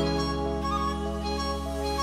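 Instrumental background music: held chords over a steady bass, with a melody moving slowly above.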